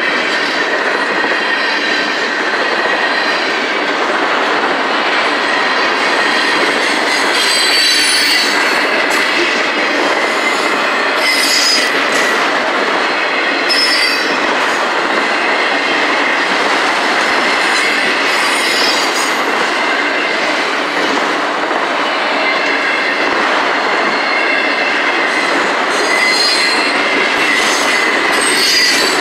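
Freight train cars rolling past at steady speed: a loud, continuous rumble of steel wheels on rail, with high wheel squeals flaring up several times.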